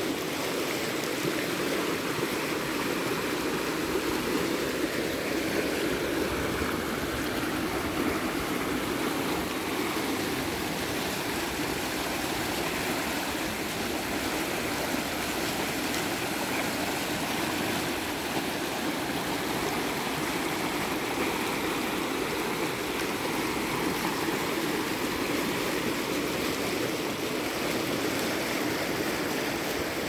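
Fast-flowing mountain creek rushing over rocks in shallow whitewater riffles, a steady, unbroken rush of water.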